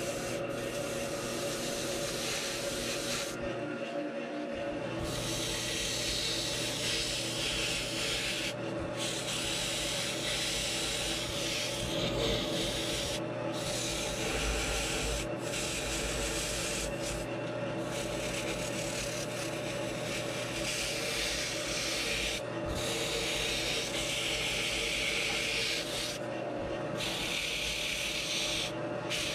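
Sandpaper rubbing against a pink foam blank spinning on a Grizzly lathe: a steady sanding hiss with several short breaks where the paper is lifted and reset, over the lathe motor's steady hum.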